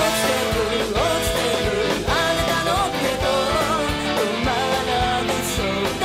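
A pop-rock song playing, with a sung melody over a steady drum beat and guitar.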